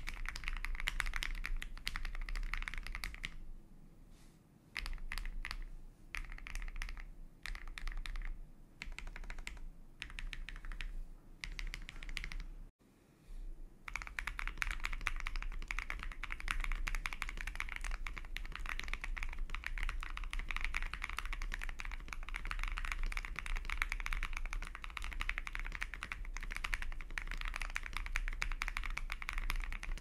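Typing on an Akko ACR Pro Alice Plus mechanical keyboard with an aluminum plate, plate foam and tempest tape mod. At first the switches are lubed KTT Strawberry linears, and the typing thins out to scattered single keystrokes. After a brief break, fast continuous typing follows on lubed Gazzew Boba U4T tactile switches.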